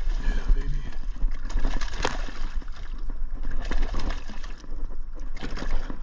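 A hooked bass splashing and thrashing at the surface of weedy water as it is fought to the side of a kayak, with irregular sharp splashes and knocks, the biggest about two seconds in, over a steady low rumble.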